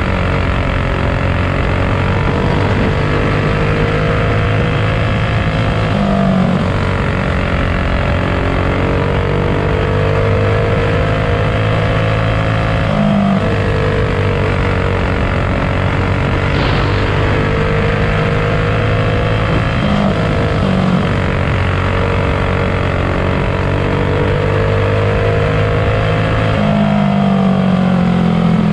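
Racing kart's single-cylinder four-stroke engine heard from on board, running hard at high revs. Its pitch climbs steadily along each straight and drops briefly in each turn, about every seven seconds, lap after lap.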